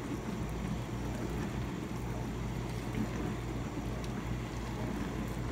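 Steady low hum of background room noise, with faint soft handling sounds as a raw meat roast is rolled up by hand.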